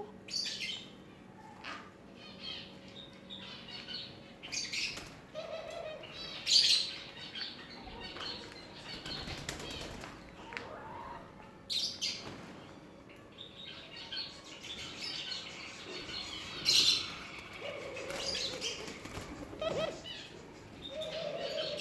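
Pigeons at the nest: repeated bursts of wing flapping mixed with high chirps, and a few low cooing calls.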